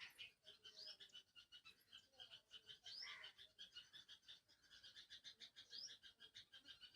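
Faint calling animals: a fast, even pulsing with a short rising chirp about every two to three seconds.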